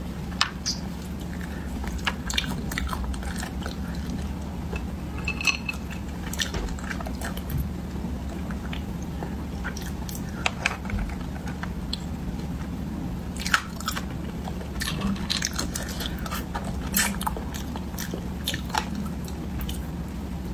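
Close-miked eating of cooked snails: chewing and wet mouth sounds, broken by many scattered sharp clicks.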